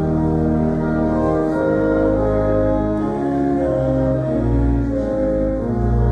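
Church organ playing a hymn in held chords that change about once a second, over a sustained low bass line.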